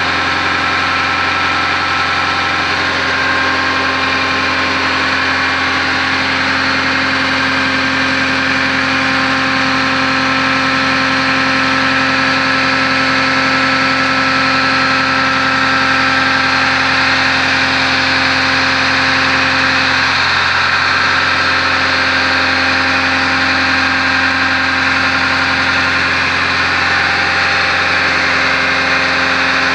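Water-well drill rig's engine and hydraulic power unit running steadily at constant speed: an even, loud hum with a hiss, its pitch unchanging.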